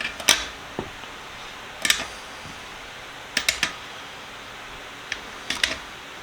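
Steel sockets being set into their metal holder: sharp metallic clicks and clinks in small groups every second or two.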